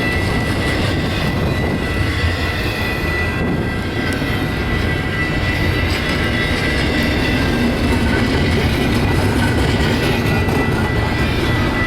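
Long intermodal stack train rolling past, its steel wheels on the rails making a steady loud rumble, with a steady high-pitched whine running through it.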